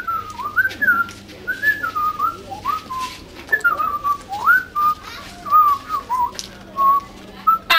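A person whistling a meandering tune: a string of short notes that glide up and down.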